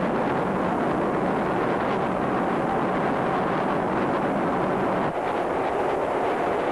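New York City subway train running at speed through a tunnel: a steady, dense rumble of wheels on the rails and the running gear.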